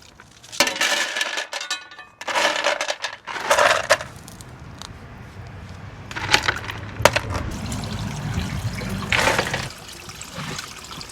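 Water pouring and splashing in irregular bursts, with a few sharp knocks, around a backyard goldfish tank's resealed waterfall box.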